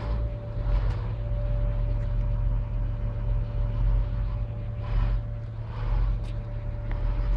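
Truck engine running steadily, a low hum with a faint steady whine above it, broken now and then by short rushes of noise.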